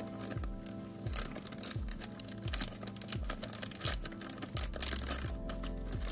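Thin clear plastic bag crinkling as fingers pull it open, over background music with a steady beat.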